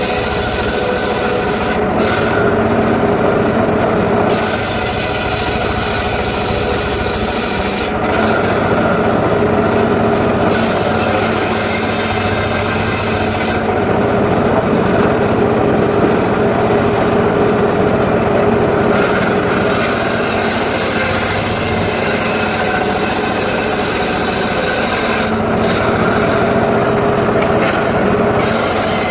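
Homemade circular saw cutting sengon wood: the motor runs steadily while the blade's rasping cut comes and goes every few seconds as the wood is fed through.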